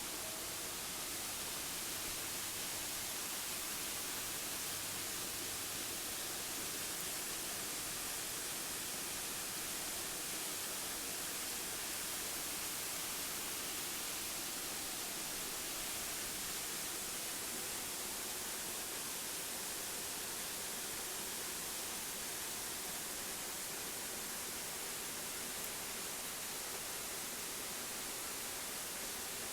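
Steady, even hiss with no change in level, strongest in the treble.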